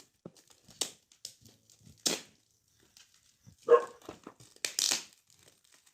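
Gift wrapping or packaging being torn open and crinkled by hand: a few short, sharp rips and rustles with pauses between them.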